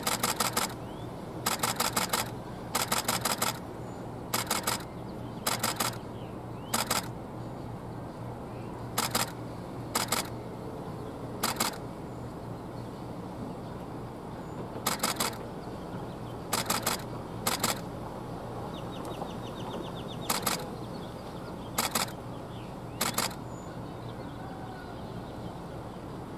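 Camera shutter firing in rapid bursts of several frames each, about fifteen bursts at irregular intervals, over a steady low background hum.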